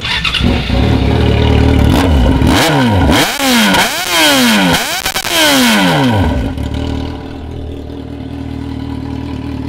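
Yamaha XJ6's inline-four engine with a short straight-through 'só o cano' exhaust, revved hard. The revs are held high at first, then come about five quick throttle blips that rise and fall, and it settles to a steady idle about six and a half seconds in. Loud enough to hurt the ear.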